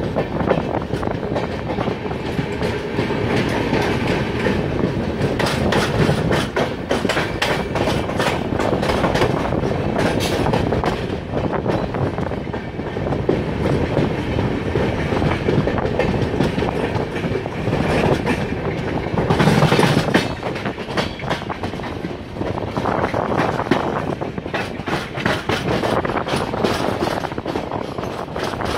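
A passenger express train's wheels clattering over rail joints and points at speed, heard from aboard the coach, with a steady rush of running noise. The clatter comes in a dense, continuous run, with a louder surge about two-thirds of the way through.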